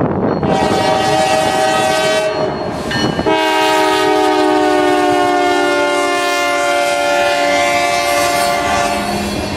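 Norfolk Southern locomotive's air horn sounding as the train passes: a long blast and a short one, then a long blast whose chord drops sharply in pitch about three seconds in as the locomotive goes by, the Doppler effect, and keeps sinking slowly. Train rumble and wind noise lie under it.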